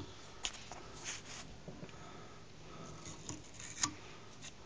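Faint handling sounds of tape being worked off a wooden pool cue: light rustles and a few sharp ticks, the loudest tick just under four seconds in.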